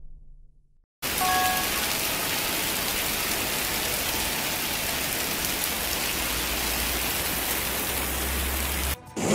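Torrential rain mixed with hail pouring down onto a flooded street, a steady dense hiss of splashing that starts about a second in and cuts off abruptly near the end.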